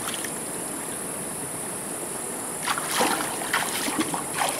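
Shallow stream running over stones, a steady rush of water. From about two and a half seconds in come a run of splashes and knocks as someone wades through the shallow water and sets river stones in it.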